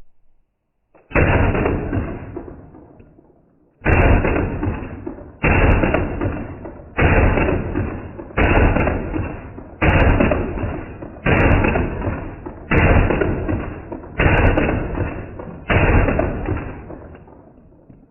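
Slowed-down 9mm gunshots from a Smith & Wesson FPC pistol-caliber carbine, played back in slow motion: ten deep, stretched-out booms about a second and a half apart, each dying away slowly.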